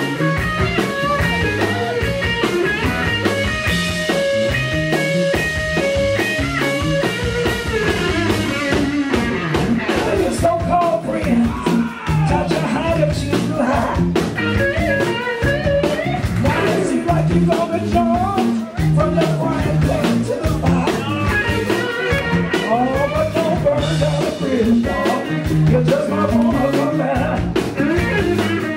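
Live blues band playing: electric guitar lines over a steady beat, with a woman singing from about ten seconds in.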